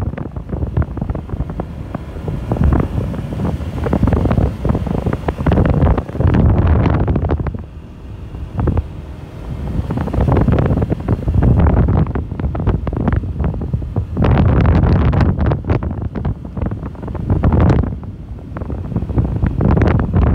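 Wind buffeting the microphone of a moving motorcycle, in loud gusts that swell and fade every second or two, over the motorcycle's running engine.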